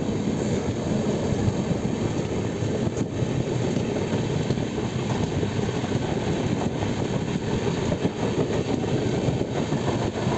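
Express passenger train running at speed, heard from an open coach doorway: a steady rumble of the coach wheels on the rails.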